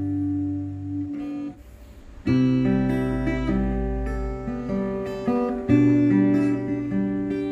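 Guitar chords played through a Vox Pathfinder 10 practice amplifier, a clean-toned song with chords held and changing about once a second and a short break about a second and a half in.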